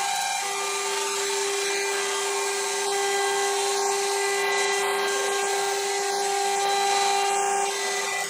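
ATC CNC router spindle spinning a V-groove bit as it cuts grooves into a wood panel: a steady high whine over the hiss of the cut.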